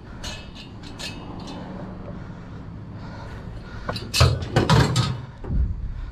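Household items being rummaged through and moved: light clicks and rattles, then a handful of loud knocks and clanks between about four and five and a half seconds in.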